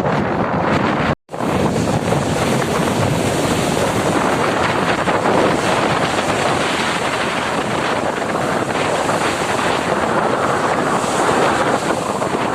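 Strong wind buffeting the microphone in a loud, steady roar, cut off dead for an instant about a second in.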